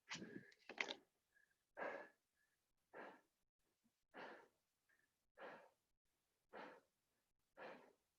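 A person breathing hard in even breaths, about one a second, while recovering after a set of burpees.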